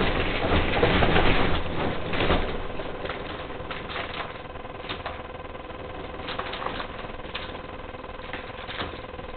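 Roller shutter slats rattling and clattering in their guides, loud and dense for the first two seconds or so, then a quieter run of irregular clicks and knocks. The rattle is a build defect in a new house's roller shutters.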